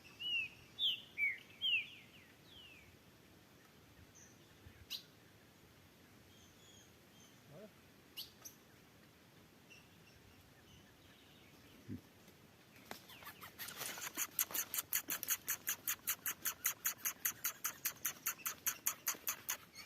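Birds giving a few short, downward-sliding chirps, then scattered faint clicks. About two-thirds of the way in comes a fast, even run of sharp high ticks, about five a second, which lasts to the end.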